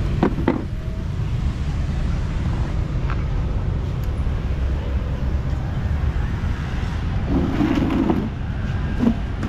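Steady low rumble of street traffic, with a brief voice about three-quarters of the way in.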